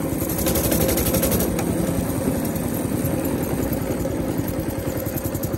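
Baja Warrior minibike's small single-cylinder engine running as the bike is ridden, swelling a little about half a second in, with its firing pulses growing more distinct near the end.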